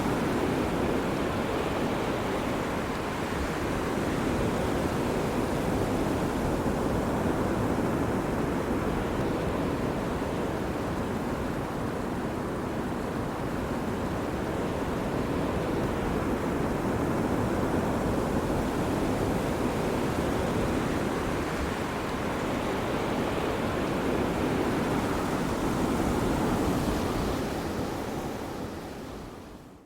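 Ocean waves breaking and washing on a beach in a steady surf with gentle swells, with some wind, fading out near the end.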